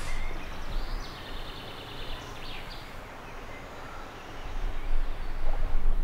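Forest ambience: a steady rush of outdoor noise with a few short high bird calls between about one and two and a half seconds in, and low rumbling on the microphone that swells near the end.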